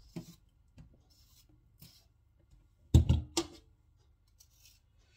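Faint tapping and handling sounds, with one sharp knock and a couple of quick clicks about three seconds in.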